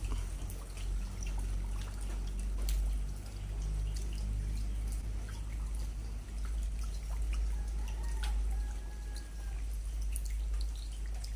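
Rain falling as scattered drips and drops, many separate small ticks, over a steady low rumble.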